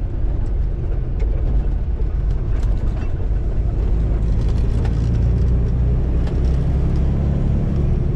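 Semi truck's diesel engine droning inside the cab while driving, with road noise and light cab rattles. The low engine note grows fuller and louder about halfway through as the engine pulls harder.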